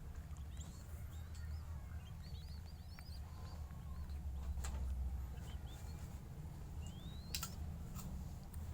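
Faint, high, short bird chirps and squeaks, including one longer rising squeak near the end. A few sharp clicks and a steady low hum run underneath.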